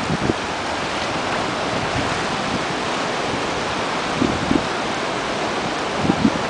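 Steady rush of wind and shallow sea water, with a few short splashes of a dog wading through the water, the first right at the start, a pair about four seconds in and more near the end.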